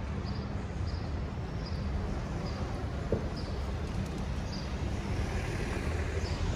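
City street traffic: a steady low rumble of cars and a truck passing, with light ticks about once a second and a single small click about three seconds in.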